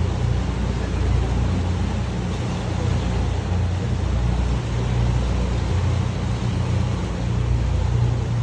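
Boat's engine running with a steady low drone under an even wash of water noise.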